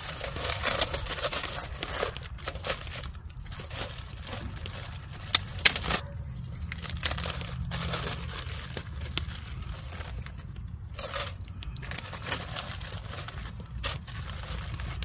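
Plastic zip-top bag and aluminium foil crinkling and rustling as they are handled and opened, with many irregular sharp crackles.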